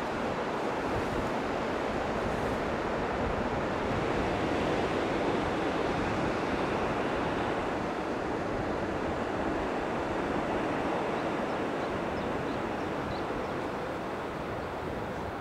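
Steady rush of wind and breaking sea surf, with no distinct events.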